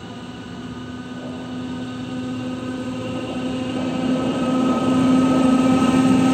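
A freight train approaching, its locomotive's steady multi-toned hum growing steadily louder.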